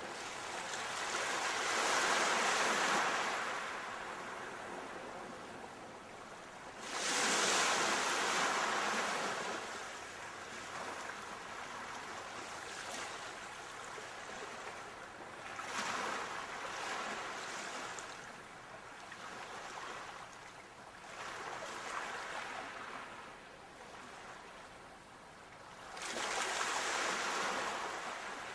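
Sea waves breaking and washing up a shore, with the surf rushing in about five times, each surge swelling and then draining away; the one about seven seconds in comes in suddenly.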